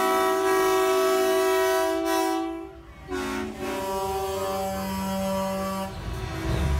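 Semi truck's air horn blowing two long blasts, each a chord of several held notes, with a short break between them. Near the end a heavy truck engine is heard running as the rigs roll by.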